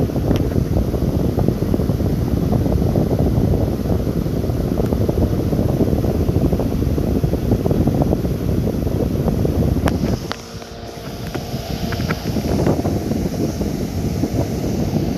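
Steady low rumbling noise that dips for a second or two about ten seconds in, with a few faint clicks.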